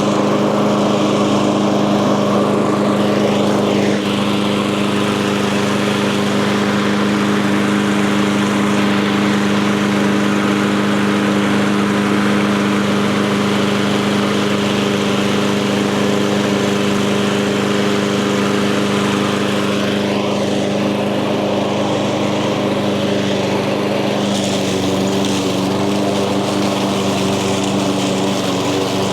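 Echo 190cc single-cylinder gas push mower engine running at a steady speed, cutting through tall, thick grass.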